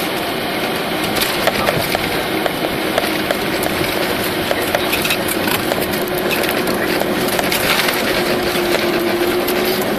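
Cabin noise of a Tu-204 airliner rolling along the runway after landing: a loud, steady rush of engine and rolling noise with rapid rattling of cabin fittings, and a steady low engine hum that rises slightly near the end.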